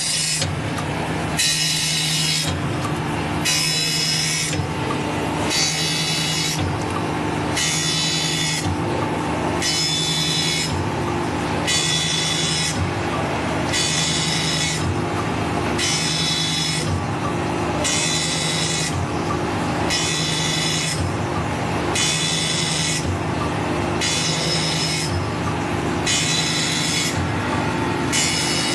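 MF-127 circular saw blade grinding machine running, its motor humming steadily while the grinding wheel takes a short, high scraping pass on one tooth after another, about every second and a half.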